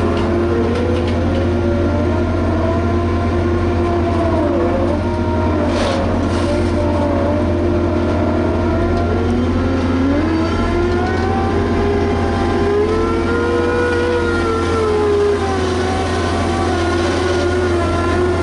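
Liebherr HS 8200 dragline excavator at work: a steady low diesel engine drone with whining tones that slowly rise and fall as the machine works, and one brief knock about six seconds in.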